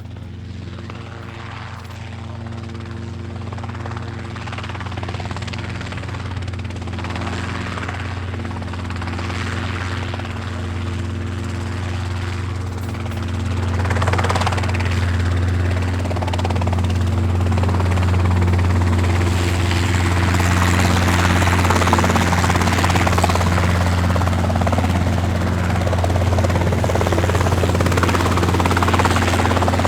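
Helicopter rotor and turbine running steadily, growing gradually louder throughout, with a further jump in loudness about 14 seconds in.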